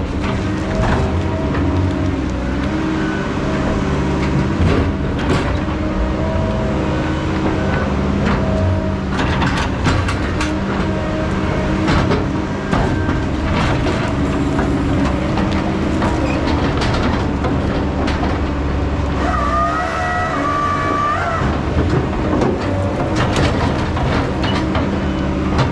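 Heavy logging equipment's engine running steadily under work, with repeated metal clanks and knocks. A brief high-pitched whine comes about twenty seconds in.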